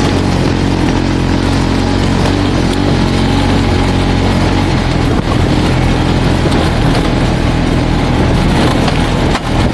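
Polaris RZR side-by-side's engine running steadily under a rushing haze of noise, with a brief drop in level near the end.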